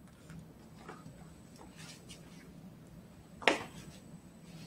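Faint handling noises of objects being moved, over a steady low hum, with one sharp knock about three and a half seconds in.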